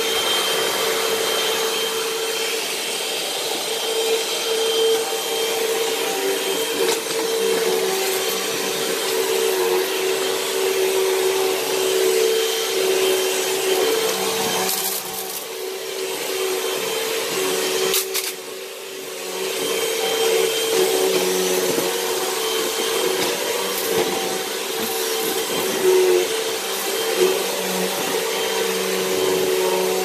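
Hoover Elite Rewind upright vacuum cleaner running steadily, its motor giving a constant whine over the rush of suction as it is pushed across hard floors. The sound dips briefly twice a little past the middle.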